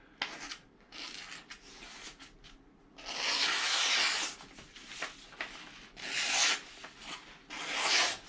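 A pocket-knife blade slicing through a sheet of paper in a few rasping strokes, the longest lasting about a second, to test how sharp the edge is.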